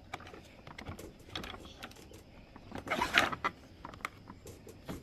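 Plastic toy-kitchen parts being handled and fitted together: scattered light clicks and knocks, with a louder scraping rattle about three seconds in.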